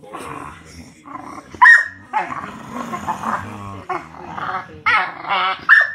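A boxer and a puppy play-fighting: growling throughout, with short high barks, the two loudest about a second and a half in and right at the end.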